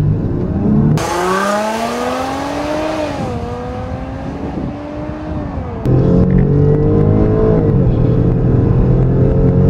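SUV engine at full throttle, accelerating hard from a standstill: the engine note climbs, drops at each upshift and climbs again. The sound switches about a second in and again about six seconds in between a hissier outside take and a steadier inside-the-cabin take.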